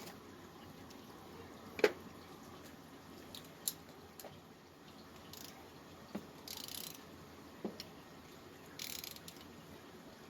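Hand socket ratchet clicking in two short quick spells while 5/16 bolts are backed out of an engine cover, between a few separate sharp metal clinks of tools and parts, the loudest about two seconds in.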